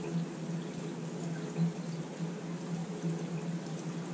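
Steady noise of rain and running water, with a low hum underneath that wavers in strength.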